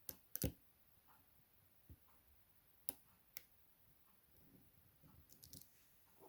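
Faint, scattered clicks of a lock pick working the pins of a Chubb M3 lock: a close pair about half a second in, single sharp clicks around two, three and three and a half seconds, and a quick run of light ticks near the end.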